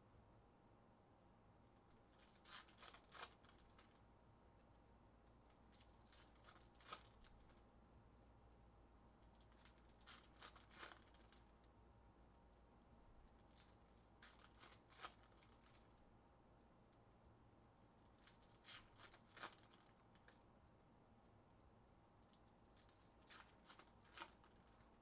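Foil wrappers of Topps Chrome trading-card packs being torn open and crinkled by hand, in short faint bursts about every four seconds.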